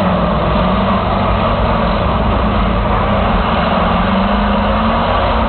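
School bus engines running hard in a demolition derby, a continuous loud drone whose pitch wavers up and down as they rev.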